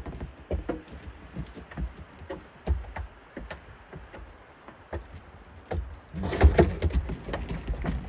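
Wind buffeting the microphone, surging into a loud gusty rush about six seconds in, over scattered sharp clicks and crunches.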